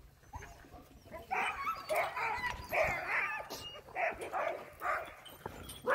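Sled dogs whining and yipping in a string of short, high calls, starting about a second in.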